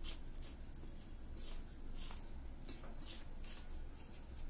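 Fingers rubbing and stirring dry rice flour in a steel bowl: a string of soft, irregular brushing swishes, roughly two a second.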